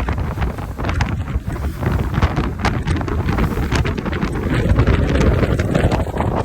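Wind buffeting the microphone over the steady rumble of a speedboat running fast across open water, with many irregular knocks.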